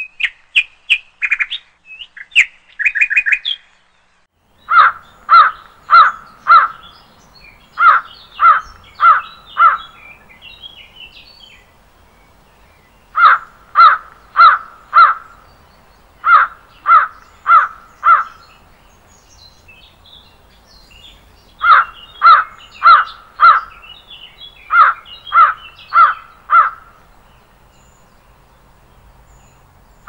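A crow cawing in runs of four evenly spaced caws, with pauses of a second or more between runs, over faint chirping of small birds. The first few seconds hold only quick high chirps, before the cawing starts.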